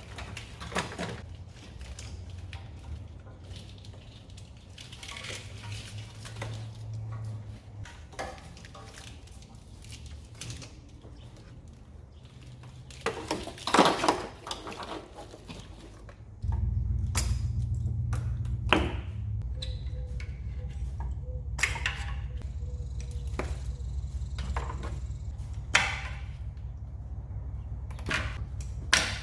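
Scattered clicks, taps and knocks of plastic connectors, wires and parts being handled while stripping an engine, with a louder cluster of knocks about halfway through. Underneath runs a low steady hum that becomes louder about two-thirds of the way in.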